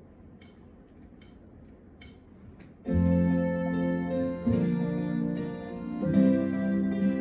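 Ensoniq ZR-76 keyboard starting a song intro: faint, evenly spaced ticks about every 0.8 seconds, then chords enter loudly about three seconds in and change twice.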